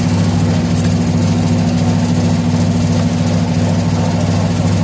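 Candlenut and nutmeg cracking machine running steadily with a constant low hum, with a few faint clicks over it.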